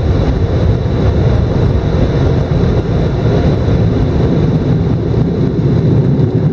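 Car wash air dryers blowing onto the car, heard from inside the cabin as a loud, steady rush of air.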